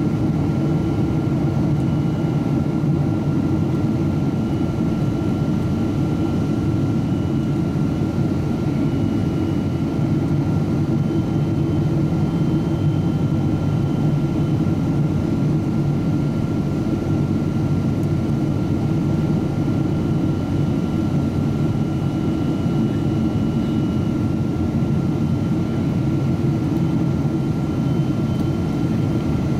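Steady in-cabin noise of a Boeing 777-200ER airliner in flight, heard beside the wing: a deep, even rumble of turbofan engine and airflow with a steady high whine over it.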